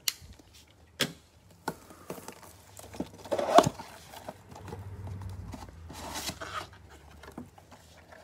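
A cardboard trading-card box being opened and handled with gloved hands: flaps and an inner box sliding and rustling, with sharp taps and knocks of the box against the table, the loudest a little after three seconds in.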